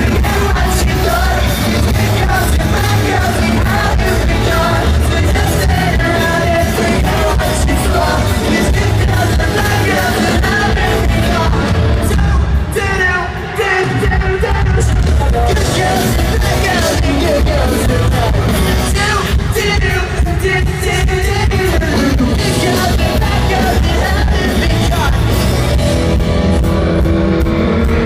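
Live pop-rock band playing a song with electric guitar, bass, drums and a male lead vocal, heard through the stadium PA from the audience. The music is loud and continuous, with a short drop in level about halfway through.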